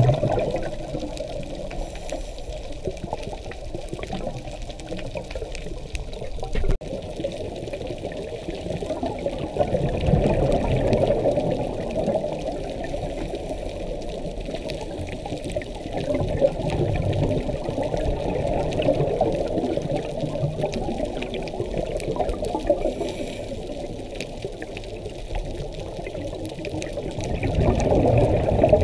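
Underwater recording through a camera housing: a scuba diver's exhaled regulator bubbles gurgling and rushing in surges every several seconds, with a muffled steady wash between them. One short click about seven seconds in.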